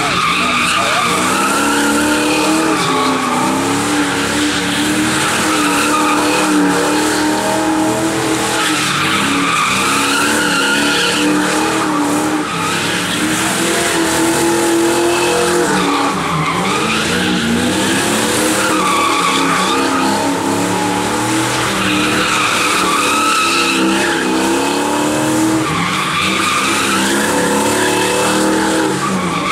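Car doing donuts: the engine is held at high revs over continuous tyre squeal, and the pitch rises and falls every three seconds or so as it circles.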